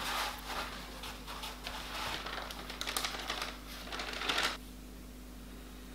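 Kitchen paper rustling and a plastic bag crinkling in a run of small clicks as paper towel is spread out and soaked wood ear fungi are laid on it. The handling stops about four and a half seconds in.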